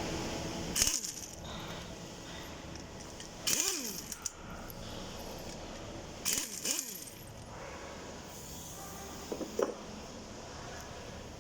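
Metal clinking and scraping from tools and steel parts being handled during work on a geared winch, in four separate bursts a few seconds apart, two of them with a short squeal of metal sliding on metal.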